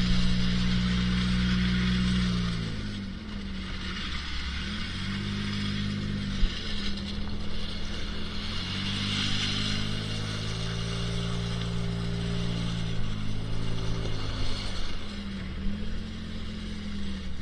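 Four-wheel-drive truck engine heard from inside the cab, its note dropping away and picking up again several times as the throttle comes off and back on. Tyres crunch over beach gravel and pebbles underneath it.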